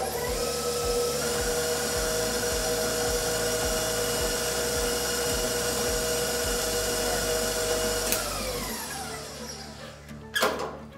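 Electric bowl-lift stand mixer running at low speed as it creams butter and brown sugar, a steady motor whine. About eight seconds in it is switched off with a click and the whine falls in pitch as the motor winds down, followed a couple of seconds later by a single knock.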